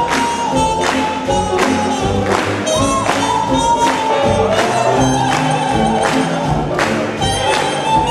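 Swing band music: a steady beat under a long, held melody line.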